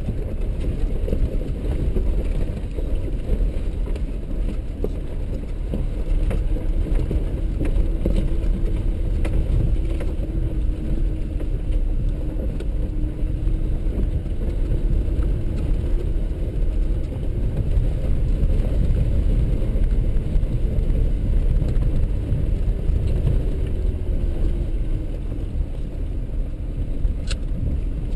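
4x4 vehicle driving slowly over a rough dirt trail, heard from inside the cab: the engine runs under a steady low rumble of tyres and suspension on the rocky surface. A single sharp click comes near the end.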